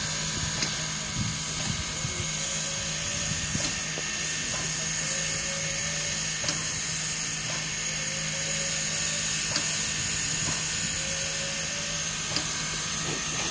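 Steam locomotive standing under steam: a steady hiss with a constant mechanical hum and a high whine, and a faint short rising tone coming back every few seconds.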